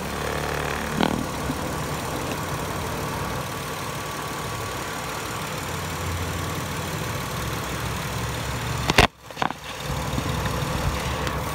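Infiniti I30's V6 engine idling steadily with the hood open. There is a short knock about a second in and a sharp, loud knock with a brief drop in sound about nine seconds in.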